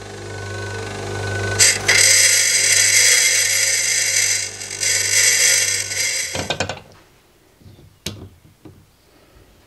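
Bench grinder running with a steady motor hum while a small threaded metal part is ground against its wheel, giving a loud grinding noise for about five seconds. The grinder then stops about two-thirds of the way in, followed by a few faint clicks.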